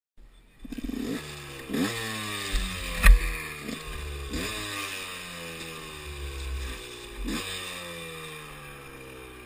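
Motocross bike engine idling, blipped with the throttle several times; each rev shoots up quickly and then falls slowly back to idle. A sharp knock about three seconds in is the loudest sound.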